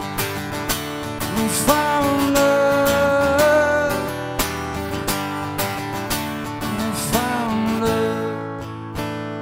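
Acoustic guitar strummed steadily while a man sings long held notes that slide up in pitch, twice.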